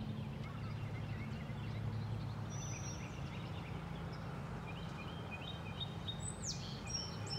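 Outdoor ambience of small birds chirping and calling with short high notes over a steady low hum. Late on, one bird gives a quick run of repeated notes followed by a downward-sliding call.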